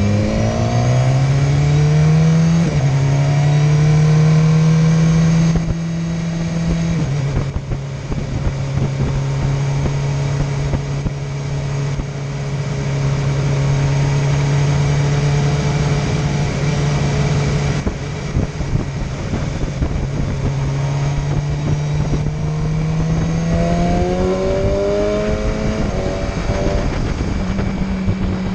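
Motorcycle engine heard from the riding bike, pulling steadily through the gears: the note rises as it accelerates, drops in steps as it shifts up about two and a half seconds in and again around seven seconds, eases off near eighteen seconds, then climbs again before dropping near the end. Wind noise rushes over the microphone throughout.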